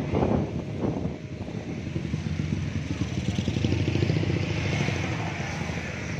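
An engine running steadily, building in level through the middle seconds and easing off near the end.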